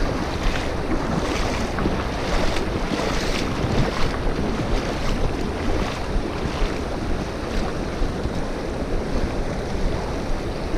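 Steady rush of a shallow, rocky stream flowing around the wader, with wind buffeting the microphone.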